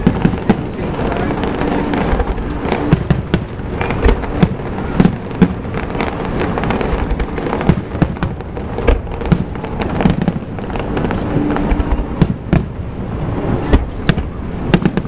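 Aerial fireworks shells bursting in rapid succession: many sharp bangs and cracks, several a second, over a constant crackling din.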